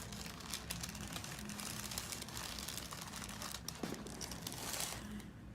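Crinkling, rustling sound with many small crackles, which stops about five seconds in.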